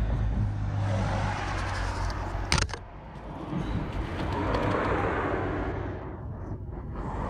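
Rear wheel of a jacked-up Citroën C1 spun by hand, a rushing whir that swells twice, with one sharp click about two and a half seconds in.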